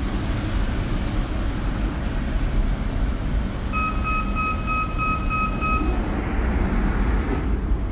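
Interior of a series 2100 electric commuter train: a steady low rumble, and about four seconds in the door warning beeper sounds about seven quick beeps over roughly two seconds. A brief clatter comes near the end.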